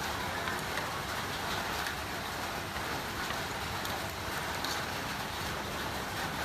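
Steady hissing noise with a few faint crackles.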